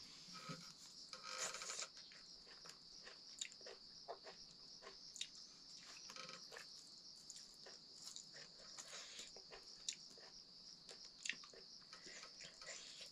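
Faint eating by hand: fingers scraping and mixing food on a metal plate, with short clicks and soft chewing every second or so, over a steady high chirring of insects.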